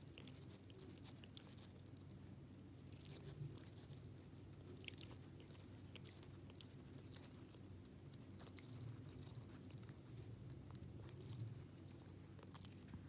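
Cat licking its fur while grooming itself: faint wet, rasping lick clicks in short bouts every second or two.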